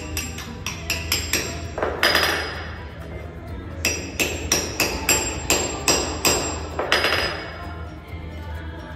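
Claw hammer striking brass anchor bolts set in holes in a stone floor: sharp, ringing metal-on-metal blows, a quick run of about four a second in the first second and a half, then after a pause a second run of about three a second that stops near the seven-second mark.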